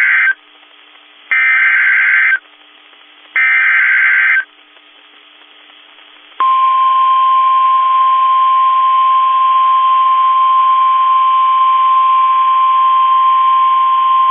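NOAA Weather Radio Emergency Alert System header: screeching SAME data bursts about a second long with a second's gap (the tail of one, then two more), followed about six seconds in by the steady 1050 Hz warning alarm tone. The alarm tone marks a warning-level alert about to be read.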